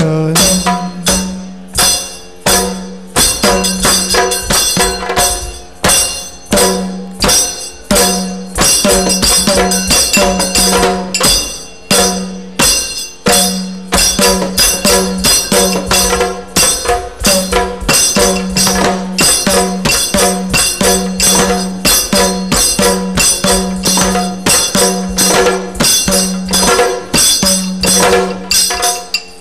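Yakshagana percussion ensemble playing a fast, dense instrumental passage: chande and maddale drum strokes with ringing hand cymbals. A steady drone underneath drops out and returns several times.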